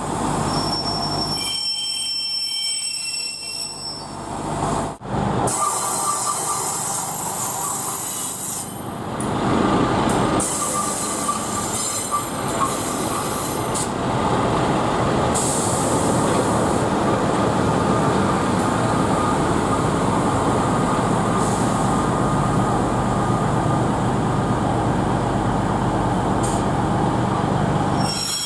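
Northern Pacer diesel railbus moving through the station: high-pitched wheel squeal over the first few seconds, then the underfloor diesel engine running steadily with rail noise.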